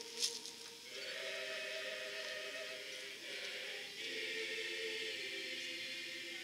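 Marching band show music: soft, choir-like held chords, two long chords one after the other, with a short sharp click just after the start.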